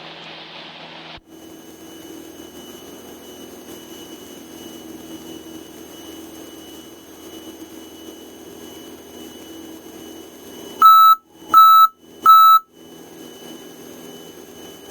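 Three loud, short electronic beeps, about two-thirds of a second apart, over a steady light-aircraft engine drone heard through the cockpit headset intercom.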